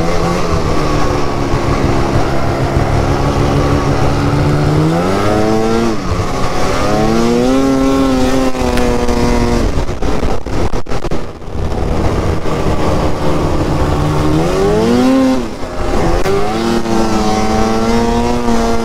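Arctic Cat ZR 6000 R XC snowmobile's 600 cc two-stroke twin running under throttle, picked up by a helmet microphone. Its pitch climbs about five seconds in, the sound breaks up briefly around ten to eleven seconds in, and it climbs again near fifteen seconds.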